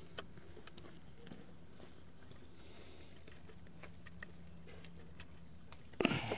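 Faint, scattered light metallic clicks of a screwdriver turning the float bowl screws on a motorcycle carburettor bank, over a low steady hum. A louder brief noise comes near the end.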